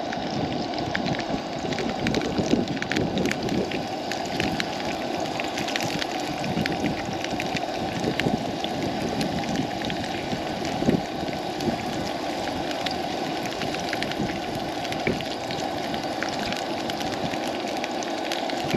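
Asparagus sizzling in hot oil in a frying pan, a steady dense crackle with one louder tap about eleven seconds in.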